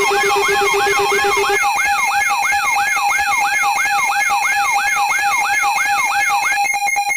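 Layered electronic alarm tones: a siren-like falling sweep repeating about three times a second over a steady held tone, with a lower pulsing tone that drops out about one and a half seconds in. Near the end a rapid beeping of about five pulses a second takes over.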